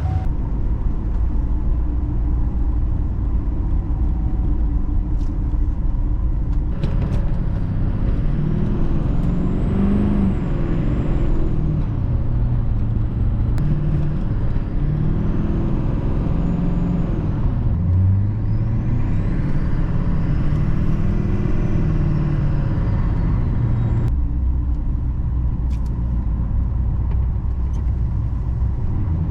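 Vehicle engine running while driving on snow, its pitch rising and falling as it speeds up and eases off between about 7 and 24 seconds in.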